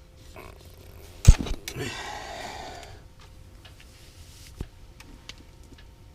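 Gear-handling noises while fighting a hooked fish through the ice: a sharp knock about a second in, then a rustling hiss lasting about a second, and a few faint ticks and a single click later.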